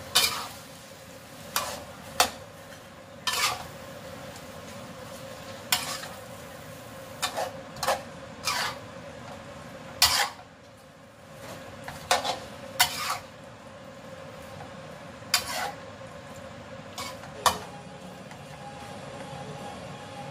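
Metal spatula knocking and scraping against a metal wok as chicken and vegetables are stir-fried, in irregular clacks about once a second over a steady low sizzle.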